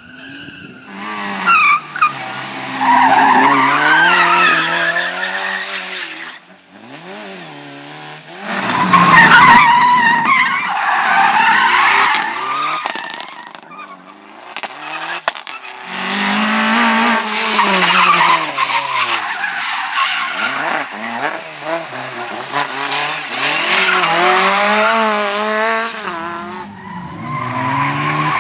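Slalom rally car driven hard, its engine revving up and dropping back again and again through gear changes, with tyres squealing in the turns.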